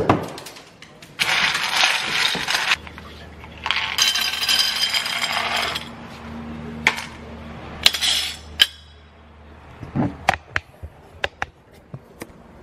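Shelled corn kernels poured into the test column of a grain moisture meter, in three rattling pours, after a knock at the start. A run of sharp clicks of kernels and handling follows near the end.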